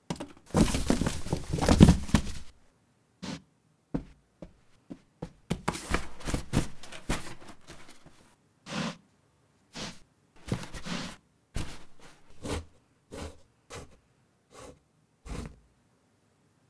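Cardboard box sound effects: a burst of cardboard rustling as the flaps close over the cat inside, then a run of short scrapes and knocks as the closed box shuffles across the floor.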